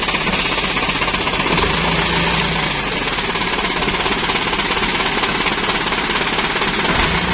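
Isuzu Elf dump truck's diesel engine running steadily with a fast, even clatter.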